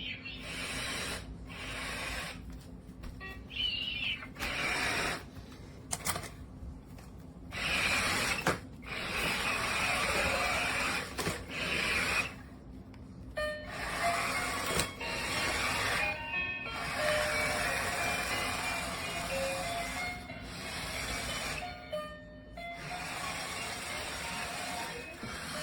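Remote-control robot spider's leg-drive motors whirring in repeated bursts as it is driven, stopping and starting every second or two, with music playing along.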